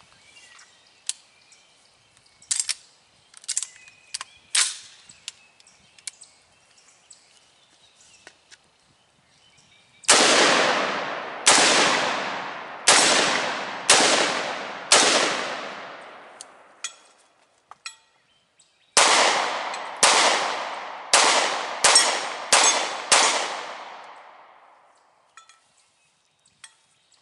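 A short-barrelled AR-15 pistol fires five shots about a second apart, then, after a pause of a few seconds, a handgun fires six quicker shots: a rifle-to-pistol transition drill. Each shot rings out with a long echo. Before the shooting there are light clicks and knocks of gun handling.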